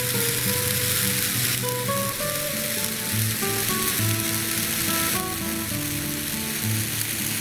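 A row of Sky Bacon 10-inch red sparklers burning with a steady sizzling hiss. Background music with slow, held notes plays underneath.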